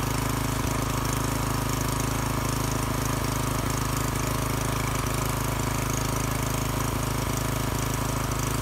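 179cc LCT single-cylinder OHV four-stroke engine, fitted with 1.3:1 ratio rocker arms, running steadily at an even speed.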